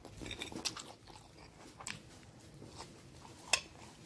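Crunchy salad being chewed close to the microphone: scattered crisp crunches, with one sharp click about three and a half seconds in.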